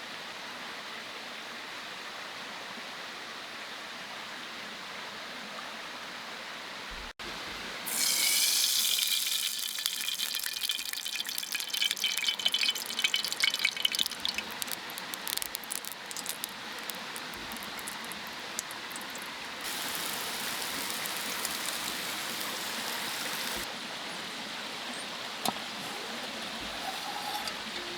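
Mountain stream running steadily; after a brief cut about seven seconds in, water splashes and pours close by for several seconds, louder than the stream, then the steady flow of the stream carries on.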